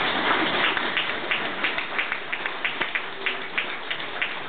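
Crowd applauding, dense at first and thinning to scattered separate claps.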